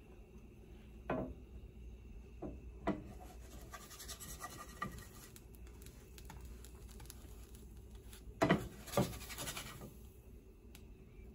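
A wooden spatula scraping and knocking against a GreenPan ceramic nonstick frying pan as it works under a pancake. There are several short scrapes, and the two loudest come about half a second apart later on.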